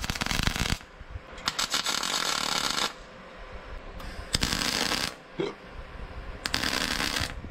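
Electric arc welder crackling in four short bursts of about a second each as steel square tubing is tack-welded at the frame joints.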